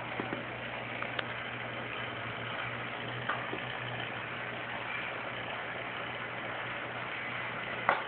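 Aquarium equipment running: a steady low hum with a hiss of moving, bubbling water. A few faint clicks break it, the sharpest near the end.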